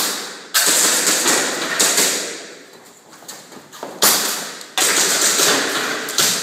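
Airsoft gas blowback pistol fired in quick strings during a practical shooting stage, with BBs striking metal plate targets: sharp shots, several near the start and again about four seconds in, each trailing off with a long echo.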